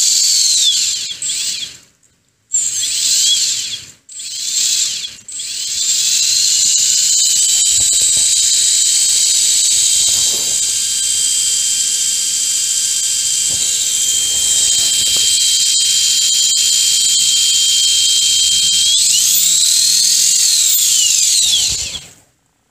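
T-Rex 450 RC helicopter tail rotor and its drive spinning at high speed with a high-pitched whine. It stops and restarts a few times in the first five seconds, then runs steadily. Near the end its pitch swoops up and down before it cuts off.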